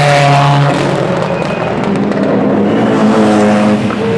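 Rally car engines running at high revs as cars pass at speed. A steady engine note breaks off under a second in, and a new note rises later.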